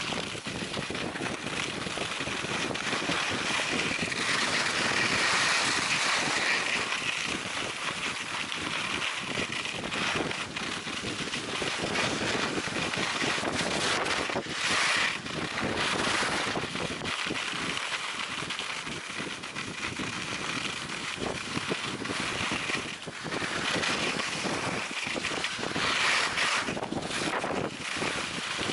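Skis sliding and scraping over a worn snow piste during a downhill run, with wind rushing over the microphone. The noise rises and falls with the turns, louder around a few seconds in and again near the end.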